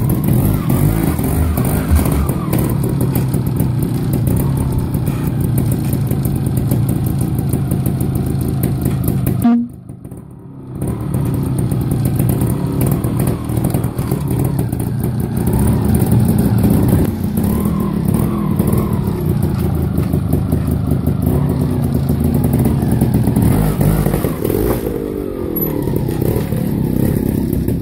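Trials motorcycle engine running at low revs with repeated short throttle blips that rise and fall. About a third of the way in the sound drops away sharply for about a second, then the engine picks up again.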